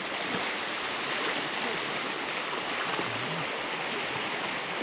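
Steady rushing of shallow creek water, an even hiss with no distinct splashes.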